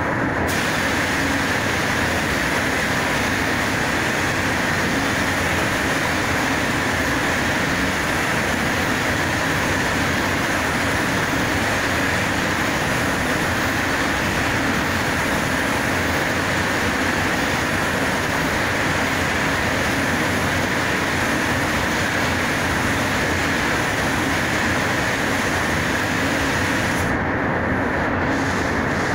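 Paint spray booth ventilation running: a loud, steady rush of moving air. A higher hiss joins it just after the start and cuts off near the end.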